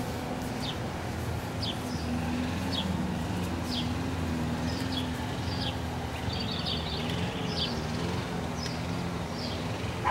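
A bird chirping over and over, short high chirps about once a second, over a steady low hum from a running engine or motor.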